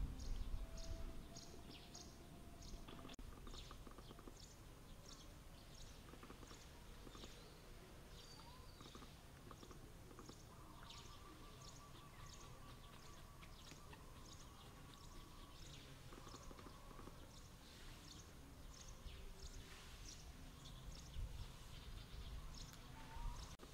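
Faint outdoor ambience: a high, thin chirp repeating about two to three times a second, with a few faint whistled notes and low background rumble.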